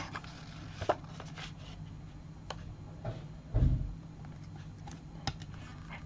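Cardstock being handled and pressed flat on a craft mat: a few faint light taps and paper sounds, with one dull thump about three and a half seconds in.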